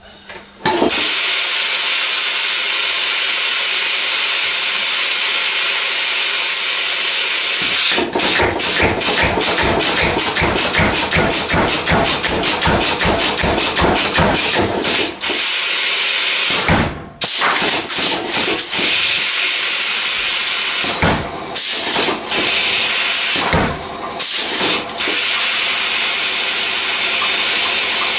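Homemade pneumatic power hammer with a steam-hammer linkage: a loud steady hiss of exhausting compressed air, blamed on an exhaust muffler whose threads don't hold. About eight seconds in the ram starts reciprocating in a rapid run of blows, several a second, for about seven seconds, then delivers a few short bursts of blows later on.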